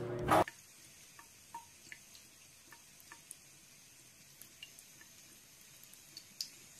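A thin stream of water trickles faintly from a bathroom faucet into the sink, with scattered soft ticks and drips as a cat drinks at it. A brief loud burst of noise comes right at the start, before the trickle.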